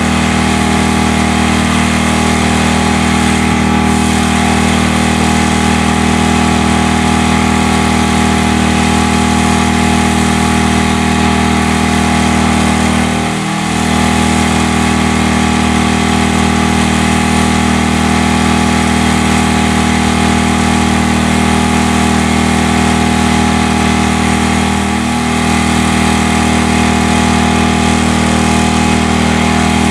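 A machine running steadily and loudly, with a low, even hum that briefly dips twice, about halfway through and again near the end.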